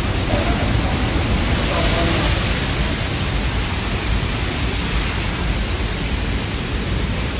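Niagara Falls' water pouring down just outside a rock tunnel opening: a loud, steady rushing that stays even throughout.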